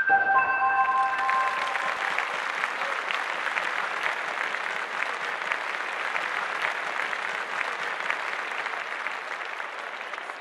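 Audience applauding, a dense, even clapping that slowly fades. The last ringing notes of electronic intro music die away under it at the start.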